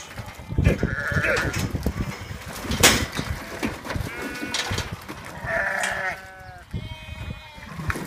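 Sheep and lambs bleating several times, mixed with knocks and clatter as they shift against a galvanised metal pen. The loudest sound is a sharp knock about three seconds in.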